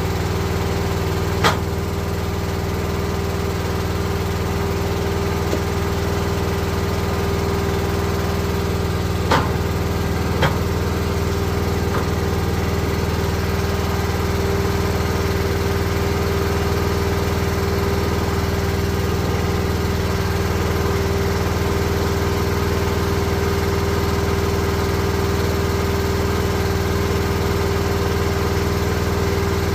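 Log splitter's small gas engine running at a steady speed, with a few short sharp knocks a second or so apart near the middle.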